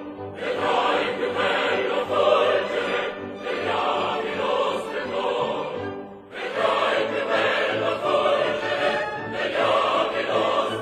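Opera chorus singing with orchestra, in two phrases with a short break about six seconds in.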